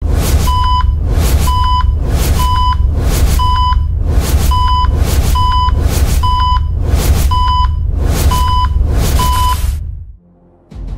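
Electronic countdown beeps: ten short, high beeps about one a second, each with a burst of hiss, over a steady deep bass rumble, counting down from ten. They stop abruptly just before the end.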